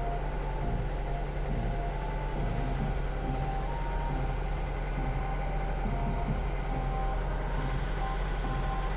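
A vehicle engine running steadily, a low even hum with no change in level.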